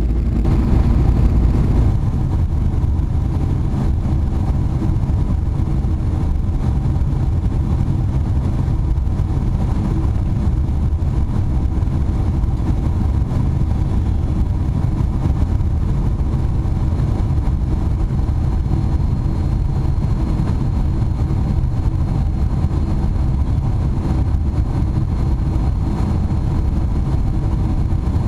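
Cabin noise inside a Boeing 747 on approach: the steady, loud, low rumble of the turbofan engines and rushing air, heard from a window seat by the wing.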